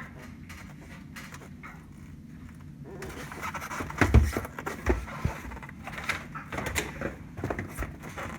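A low steady hum, then from about three seconds in a run of knocks, rattles and scraping, with two heavier thumps about four and five seconds in.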